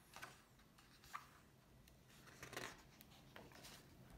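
Faint rustling and soft ticks of a hardcover picture book's page being turned and pressed flat by hand, a few short scattered sounds with the sharpest tick about a second in.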